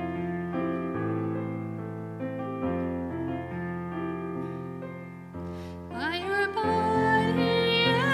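Church hymn on piano: slow, held chords changing about once a second. About six seconds in, a solo singing voice comes in over the piano and the music grows louder.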